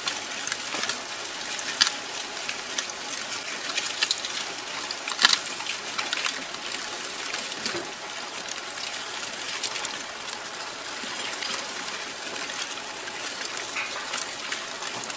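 Hatchling tortoises crawling over dry leaf-litter bedding: a steady dry crackle and rustle with scattered sharper clicks of shells and claws on the leaves.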